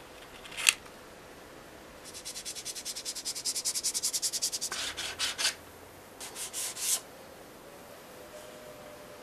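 Sanding the edge of a thin white sheet model hood part by hand: one short scrape, then a run of fast back-and-forth strokes at about a dozen a second, followed by two groups of a few slower strokes.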